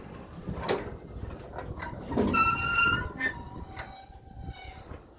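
New Holland 271 square baler's needles and knotters cycling through a tie, with scattered metal clicks and clanks. About two seconds in comes a loud, steady metal squeal lasting under a second, followed by a fainter, lower squeak.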